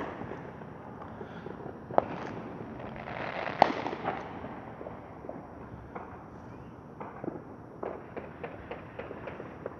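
Distant fireworks and firecrackers going off across a city: scattered sharp pops and bangs over a steady crackling haze, the loudest bang a few seconds in and a run of quicker pops near the end.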